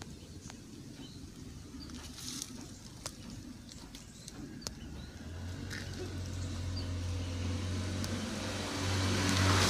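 A few light clicks, then an engine running at a steady pitch comes in about halfway and grows steadily louder.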